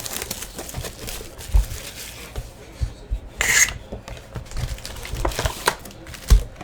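A trading-card hobby box and its packs being handled and opened: rubbing and scraping of cardboard and wrappers, a few soft thumps, and one brief, louder rustle about three and a half seconds in.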